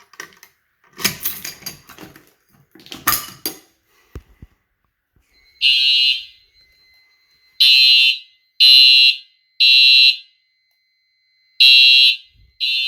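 A few seconds of clattering handling, then electronic fire alarm horns sounding loud, buzzy blasts in the temporal code-3 pattern: three short blasts about a second apart, a pause, then the next group. This is the evacuation signal from a pull station being activated. A faint steady tone runs beneath the blasts.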